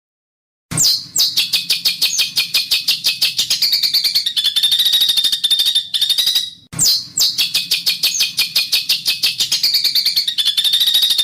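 Songbird's harsh, rasping rattle song (besetan kasar) of rapid-fire notes, about ten a second, from a masteran training recording. About six seconds in it breaks off briefly, and the same phrase starts again.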